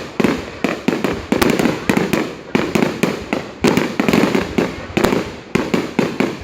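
Fireworks display: rapid, continuous bangs of aerial shells going off several times a second, each with a short rumbling decay.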